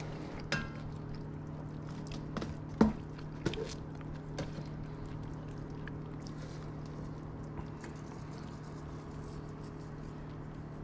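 Metal tongs clinking and knocking a few times against a dark cooking pot as steak pieces are turned in their sauce, over a steady low appliance hum.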